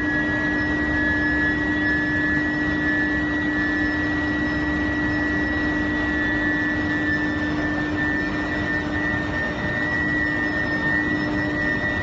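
Steel billet induction heating furnace running: a steady hum and a high steady whine over a constant din of heavy machinery.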